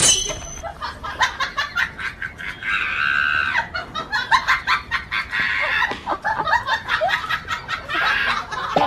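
Chickens clucking and squawking, with many short knocks and scuffles in between.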